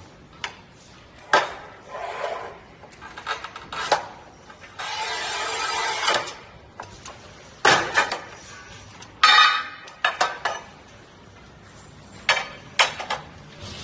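Manual push tile cutter at work on a porcelain tile: metal clicks and knocks from the handle and carriage, a steady scrape of about a second and a half as the scoring wheel runs across the glaze, then sharp cracks and clacks as the scored tile is snapped and the pieces knock against the cutter.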